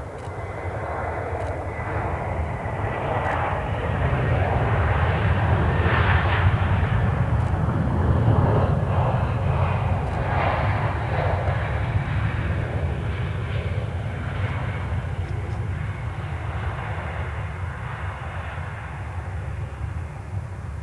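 Airliner's engines as the aircraft passes, the sound building to a peak about six seconds in and then slowly fading.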